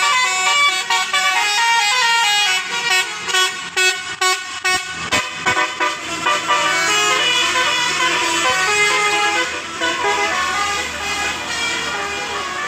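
Basuri-type telolet multi-tone air horn on a bus playing a melody of stepped notes, with a quick run of short, choppy toots in the middle. A steady low hum sits beneath from about five seconds in.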